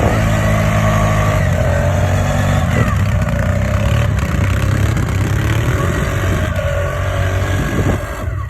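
ATV engine running under throttle off-road, its note shifting up and down as the throttle changes.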